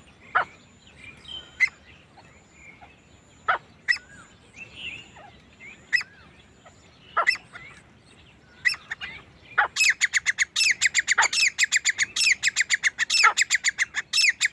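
Male grey francolin calling: sharp single notes every second or two, then from about ten seconds in a fast run of repeated shrill notes.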